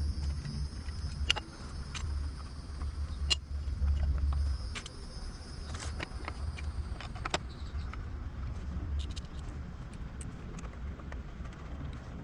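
Scattered sharp clicks and knocks of an e-bike's battery cover being pressed and snapped into place on the down tube, over a steady low rumble. A faint high hiss fades out about seven seconds in.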